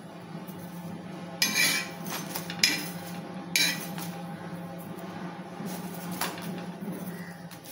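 Metal spatula scraping and clinking against a flat griddle (tawa) as it is slid under a roti to flip it: three sharp metallic scrapes in the first four seconds, the first a little longer than the others. A steady low hum runs underneath.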